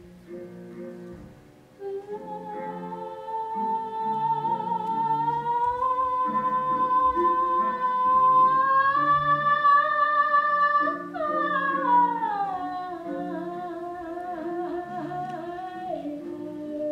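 Music for a dance piece: a long held high note, sung or played, slowly rising in pitch and then sliding down about two-thirds of the way through, over a pattern of repeating low notes.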